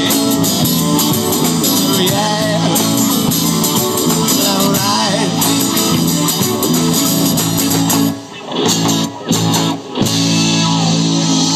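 Live band playing a rock song with guitar to the fore. The band cuts out briefly three times about eight to ten seconds in, coming back in after each break.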